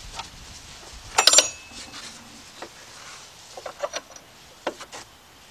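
Metal clinks and knocks from a battery hold-down clamp and its bolt being worked into place beside a car battery: a loud, briefly ringing clank about a second in, then a few lighter taps and knocks near the end.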